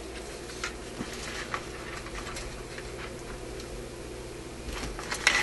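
Light knocks and small clicks as the metal chassis of an RCA A25 tube radio is handled on a workbench, with a louder clatter near the end, over a low steady hum.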